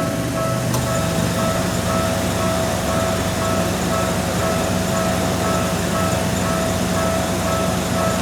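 Japanese railway level crossing's warning bell ringing its repeated "kan-kan" about twice a second, with a train running through.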